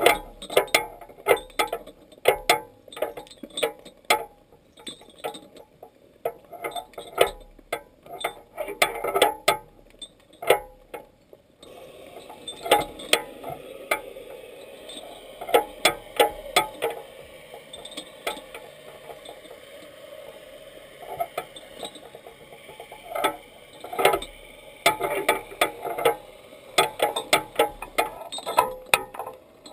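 Irregular sharp clicks and crackles picked up underwater, some close together in quick runs. A steadier water hiss comes in from about twelve seconds in.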